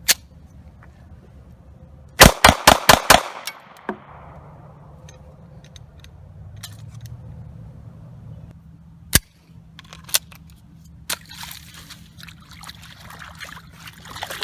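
Ruger American 9mm pistol fired about six times in quick succession, the shots echoing away, followed by a few single sharp metallic clicks of the pistol being handled.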